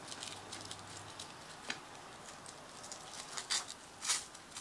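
Faint rustling and scratching of a nylon backpack as the Velcro end of a shoulder strap is worked in against the Velcro on the bottom of the pack, with small clicks and a couple of short, louder scratchy rasps near the end.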